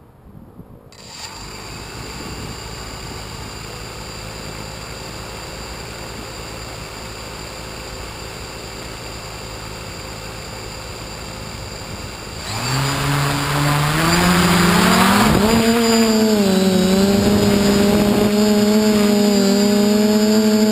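A DJI F450 quadcopter's electric motors and propellers. A low steady hum starts about a second in; about twelve seconds in the motors spin up with a rising whine to a loud steady buzz that wavers slightly in pitch, as for takeoff.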